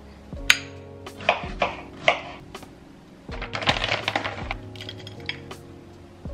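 Soft background music over kitchen sounds of a yogurt bowl being assembled: a few sharp clinks of a spoon against a glass bowl, then, a little past the middle, a second-long rattling pour of granola.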